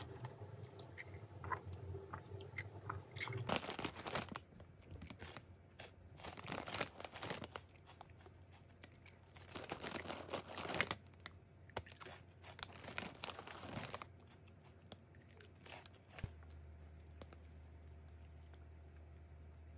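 Chewing for the first few seconds, then a foil snack bag crinkling in loud, irregular bursts as a hand reaches in and rustles it, dying away near the end.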